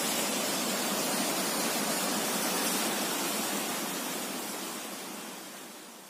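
Dhiplung waterfall's falling water rushing steadily, a dense even hiss with little low end. It fades out over the last two seconds.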